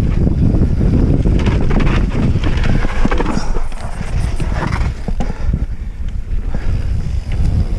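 Wind buffeting a rider-mounted camera's microphone as a mountain bike descends a dirt singletrack, with the tyres running over the ground and the bike rattling and knocking over bumps. It gets a little quieter and more broken after about four seconds.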